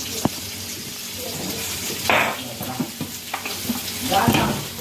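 Kitchen handling sounds as spice powder is spooned onto cut raw mango in a metal bowl: a sharp click, then short scraping and rattling strokes.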